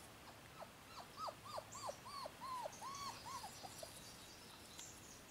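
English Shepherd puppy whining and yipping: a quick series of about ten short, falling cries, three or so a second, that trail off after about four seconds.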